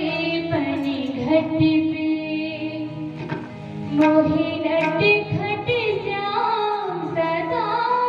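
Music: a young female voice singing a gliding melody, with drum strokes underneath.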